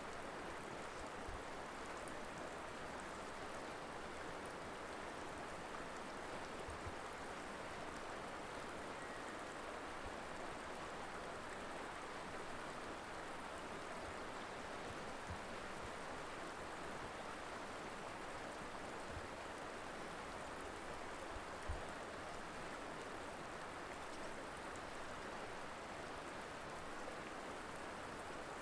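Steady rushing and burbling of a mountain river flowing over rocks, with a few faint low thumps, the strongest about 21 seconds in.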